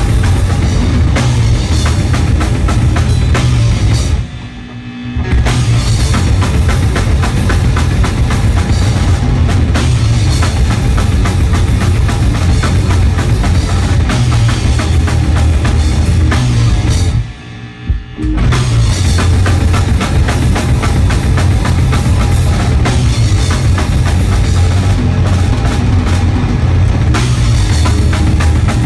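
Live heavy rock band playing loud and fast on electric guitar, bass guitar and drum kit, with a heavy bass drum. The band stops short twice for about a second, about four seconds in and again around seventeen seconds, then crashes back in.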